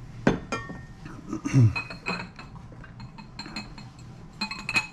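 Ceramic pieces clinking as glazed stoneware is handled: a gnome set down and a lidded ceramic canister picked up, its lid knocking against the jar. A sharp, ringing clink comes about a quarter second in and lighter clinks follow near the end, with a short low falling sound about one and a half seconds in.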